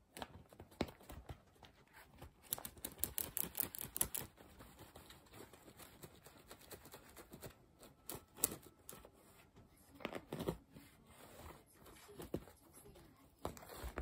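A cat pawing and scrabbling at a cloth floor cushion on tatami: scratchy rustling of fabric, busiest from about two to four seconds in, then scattered scrapes and taps.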